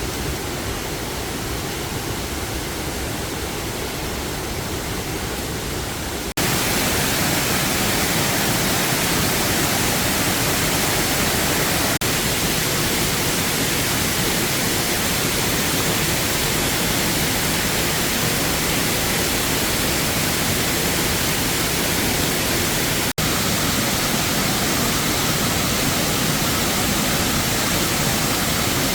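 Steady rushing of falling water from a waterfall, an even hiss that gets louder about six seconds in, with a brief break near the end.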